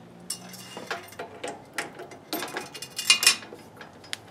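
Metal tools and parts clinking and clicking as they are handled on a drill press table and vise, with a louder cluster of clinks about three seconds in.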